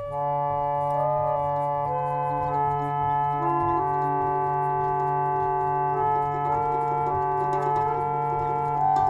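Intro theme music of slow, held keyboard chords over a steady low drone. The upper notes shift every second or so.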